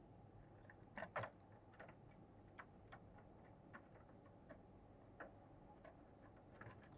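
Near silence with faint, irregular clicks, about two a second, the loudest pair about a second in.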